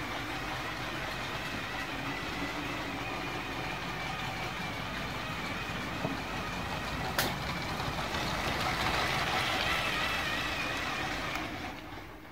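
Electric drive motor of a building-block model steam locomotive whining steadily, with the rumble of its wheels on the plastic track. It grows a little louder a few seconds from the end, then fades, with a single sharp click about seven seconds in.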